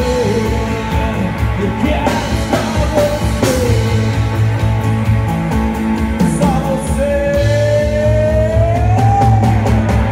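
Live pop-rock band playing: male vocals over acoustic guitar, red electric guitar, bass guitar and drum kit. There is one long held sung note in the second half.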